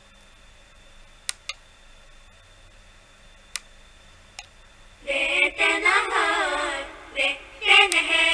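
Four light clicks of the buttons on a toy car-shaped SD-card speaker as it is skipped forward through its tracks. Then, about five seconds in, a high voice singing with wavering, melismatic lines plays from the small speaker.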